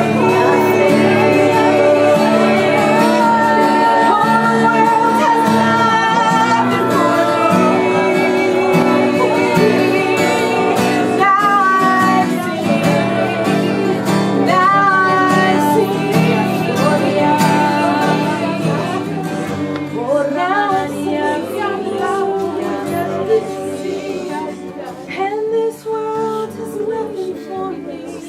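Worship music: singing over instrumental accompaniment, with sustained chords. It grows quieter over the last several seconds.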